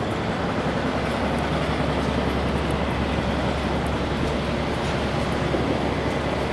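Steady low rumble with a constant hiss; the level does not change.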